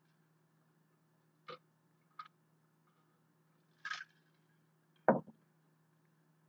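A clear plastic cup handled and drunk from: four short knocks and clicks, the loudest about five seconds in.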